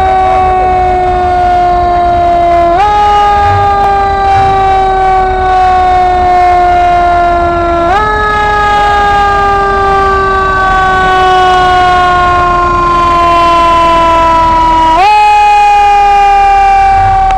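Fire engine siren sounding one continuous wail. Its pitch sags slowly and is bumped sharply back up three times.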